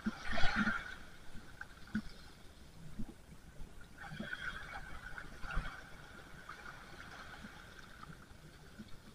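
Small waves washing and lapping over a shallow sandy beach, with a few faint knocks.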